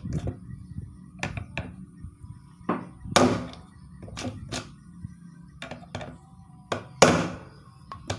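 Knocks on a Philips blender's plastic motor drive coupling, struck on the slanted side of its teeth to loosen and unscrew it from the motor shaft. Several light taps and two sharp blows, one about three seconds in and one near the end.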